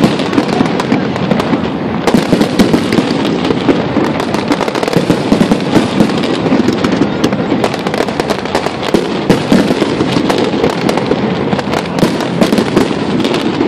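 Fireworks display going off without pause: a dense run of overlapping bangs and crackling.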